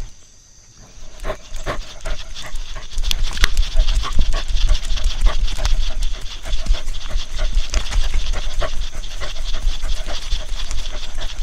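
Dog panting, over a steady low rumble and scattered clicks.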